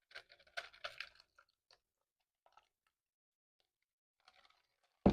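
Faint crinkles and clicks of a plastic sandwich bag being handled as passion fruit pulp is put into it, ending in a sharp knock.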